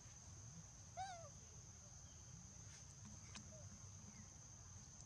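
Quiet forest ambience with a steady high-pitched insect drone, broken about a second in by one short animal call that rises and falls in pitch, and a faint click a little after three seconds.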